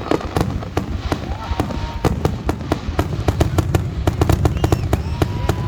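Fireworks grand finale: a dense, rapid barrage of bangs and crackles, many per second, over a continuous low rumble.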